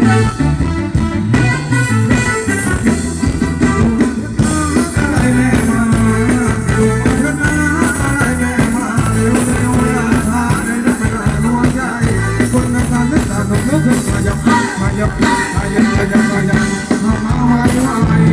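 Live band playing Thai ramwong dance music, with electric guitar over a steady beat and a bass line, and a singer's voice heard now and then.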